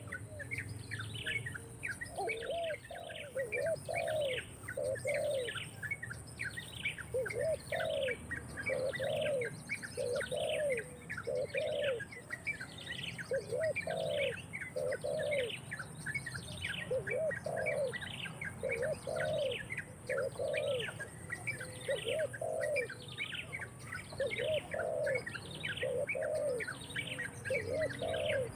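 Birds calling: a high, down-slurred chirp repeated about one and a half times a second, over groups of three or four lower, cooing notes that come back every couple of seconds.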